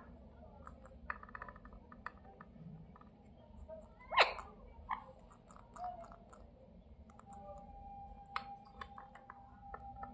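Indian ringneck parrot giving short, sharp chirps, with one loud call about four seconds in and a few softer ones after, among scattered soft clicks.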